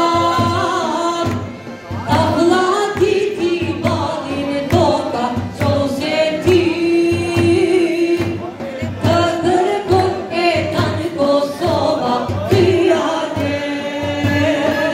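Several voices singing an Albanian folk song together over a steady low beat.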